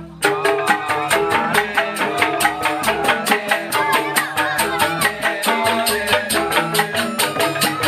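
Balinese joged bumbung gamelan: bamboo xylophones struck with mallets in fast, even interlocking patterns, with a kendang drum, at about six strokes a second. The passage starts after a brief pause at the very beginning.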